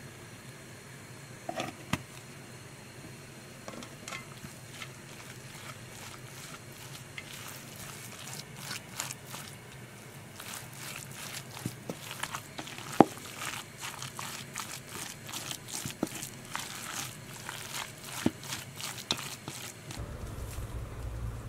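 Ground veal, onion, spices and flour being mixed in a stainless steel bowl with a spatula: irregular clicks, scrapes and knocks of the spatula against the bowl, sparse at first and busier from about eight seconds in, with a few sharper knocks.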